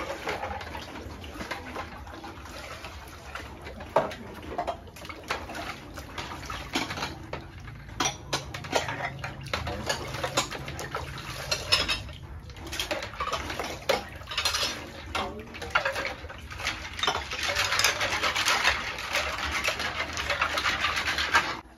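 Dishes and utensils clinking and clattering irregularly during a meal, over a steady hiss that grows louder in the last few seconds and then cuts off.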